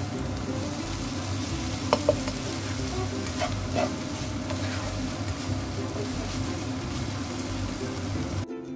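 Stir-fried noodles and vegetables sizzling in a non-stick wok while a spatula stirs and tosses them, with a few light clicks of the spatula on the pan about two seconds in and again around three and a half seconds. The sizzle cuts off suddenly near the end.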